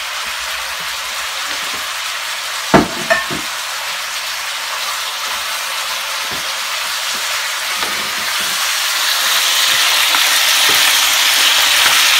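Liver and onion rings sizzling in hot oil in a frying pan while being stirred with a wooden spatula; the sizzle grows louder about two-thirds of the way through. Two sharp knocks about three seconds in.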